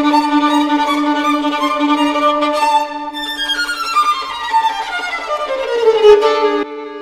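Background music of bowed strings over a held low note, with a long falling glide in the second half; the music drops away sharply near the end.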